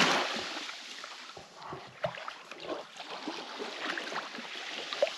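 Small waves washing on a sandy shore, swelling and fading away early, then faint scattered scrapes and clicks of a blunt bait knife cutting into a small fish.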